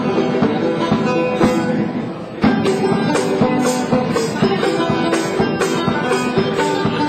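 Music with a steady percussion beat over held instrumental notes; it drops briefly about two seconds in, then comes back at full level.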